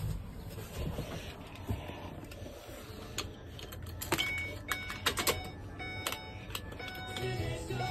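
Keys jangling and clicking in the ignition of a Ford U-Haul truck, with music playing from about three seconds in. Near the end a low rumble comes up as the engine begins to start.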